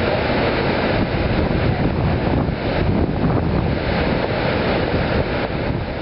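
Steady, loud rushing of a large waterfall, the High Falls of the Genesee River, an even noise without breaks.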